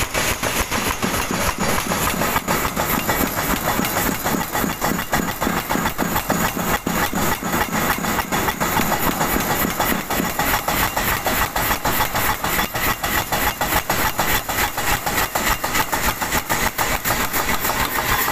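Forging machinery running steadily, with a fast, even stream of knocks that does not let up.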